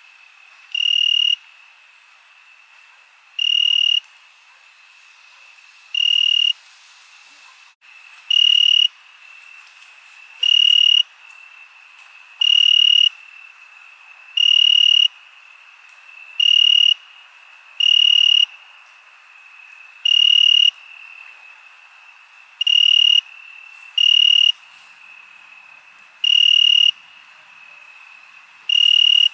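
Crickets chirping at night. Loud, high chirping trills of about half a second come every two seconds or so over a steady, fainter high-pitched chorus of more crickets.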